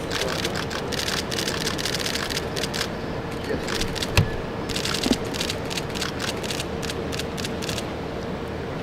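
Many camera shutters clicking in rapid bursts over a steady room hum, with one sharp knock a little past four seconds in.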